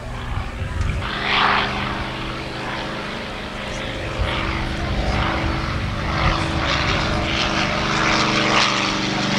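A Fletcher Fu-24 topdressing aircraft's 400 hp piston engine and propeller running steadily in flight, growing somewhat louder in the second half as the plane comes closer.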